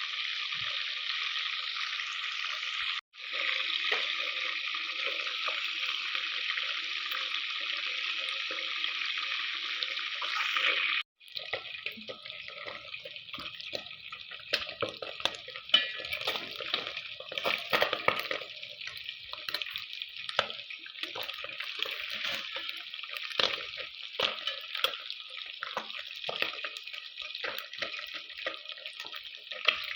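Whole tilapia deep frying in hot oil: a steady sizzle, broken off for an instant twice. After the second break, about eleven seconds in, it turns to a more uneven crackle with frequent sharp pops.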